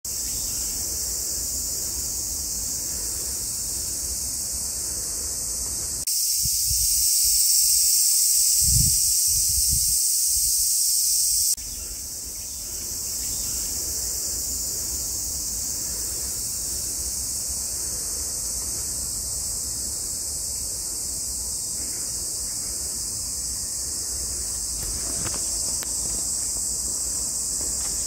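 Steady, high-pitched chorus of insects in summer grass, louder for a few seconds near the middle, over a light low rumble of wind.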